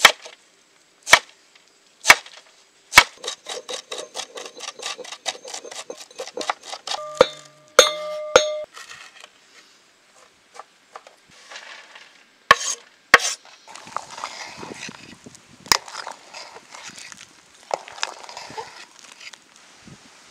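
Kitchen utensils knocking and clinking during food preparation. Four sharp knocks about a second apart lead into a fast run of light ticks lasting about four seconds, with a short metallic ring near the middle and scattered knocks later.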